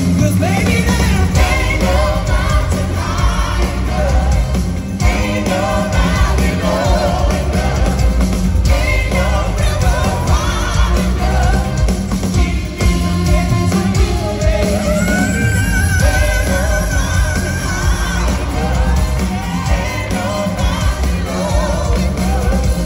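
Live band with a horn section, guitars, drums and bass playing an upbeat pop-soul song while several voices sing, recorded from within the audience. A long note is held a little past the middle.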